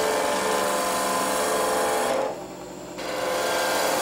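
A spindle gouge cutting into a spinning wooden bat blank on a wood lathe: a steady rushing cut over the lathe's hum. The cut breaks off for under a second about halfway through as the tool lifts, then resumes.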